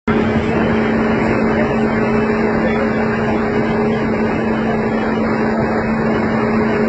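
A steady engine drone with a constant low hum, unchanging in pitch and level.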